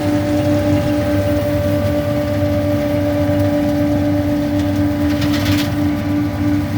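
Braud grape harvester running steadily, with a constant machine whine over a low engine rumble. A short burst of rattling comes about five seconds in.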